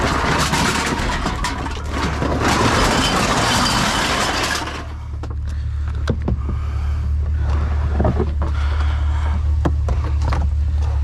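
A plastic trash can full of cans and mixed trash being emptied: a dense rustle and clatter for about four and a half seconds, then scattered knocks, over the steady low hum of an idling vehicle engine.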